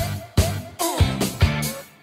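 Background music with a steady drum beat, about two strikes a second, over a bass line.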